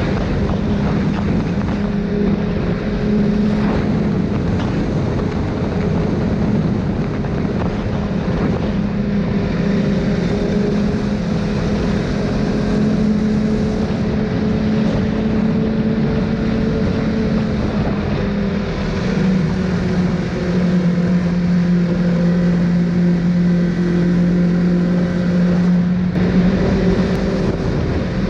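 Snowmobile engine running steadily at cruising speed, heard close up from the rider's seat, its pitch dipping slightly about two-thirds of the way through.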